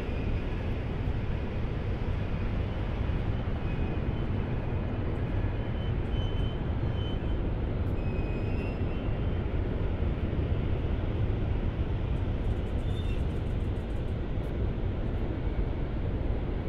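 Alstom Coradia iLint hydrogen fuel-cell train rolling slowly along the track, a steady low rumble.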